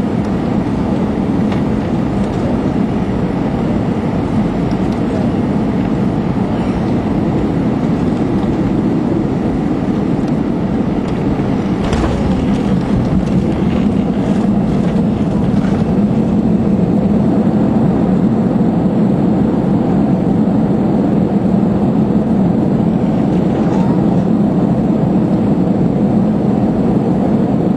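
Airbus A321 cabin noise heard from a window seat over the wing during landing: a steady rush of engines and airflow, with a brief thump about twelve seconds in as the wheels touch down. From about sixteen seconds the noise grows louder and holds there through the landing roll, typical of the engines going to reverse thrust.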